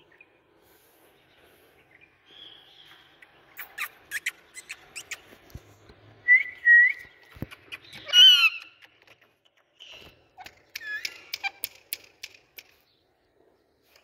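Indian ringneck parakeet whistling and chirping: two short whistled notes, then a loud wavering call about eight seconds in, with more chirps later, among scattered sharp clicks.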